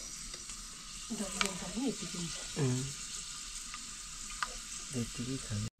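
Food sizzling as it fries in hot oil in a pan, being stirred, with a few sharp clicks of a utensil against the pan.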